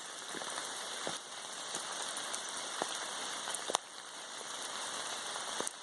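Steady rain falling, with a few sharp, louder drops close by.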